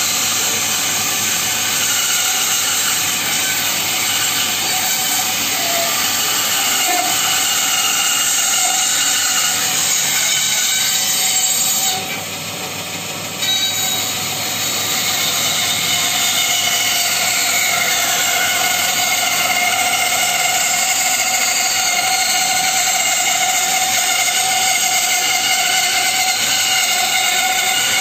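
Bandsaw cutting through a thick block of hardwood: a steady, loud whine of the blade and motor with a hiss of sawdust. The sound dips briefly about twelve seconds in, then comes back at full level.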